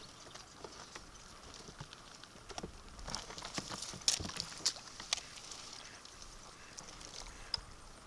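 Irregular tapping, scrabbling and a few sharp clicks from a blue animal carrier box as its lid flaps are handled to let a duck out. The sharpest clicks come near the middle.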